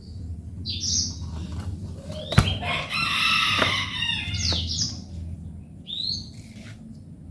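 Birds chirping in short falling chirps every second or two, with a sharp knock and then a louder, harsh, many-toned burst of about a second and a half near the middle.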